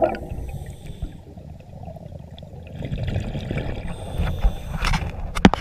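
Muffled underwater water noise from a scuba diver's exhaled bubbles. A loud bubbling burst fades in the first moment, a low rumble follows and builds again, and a few sharp knocks come near the end.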